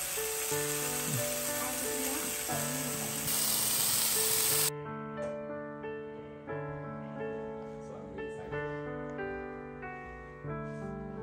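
Background music with held notes. For the first four and a half seconds, meat and vegetable skewers sizzle loudly on a smokeless electric indoor grill, and the sizzling cuts off suddenly.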